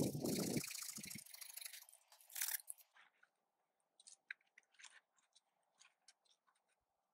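Crunching and cracking of snow, brush and small wood as a person works in a snow trench. A heavy thump and a long crunch come at the start, a second short crunch about two and a half seconds in, then scattered small cracks and clicks.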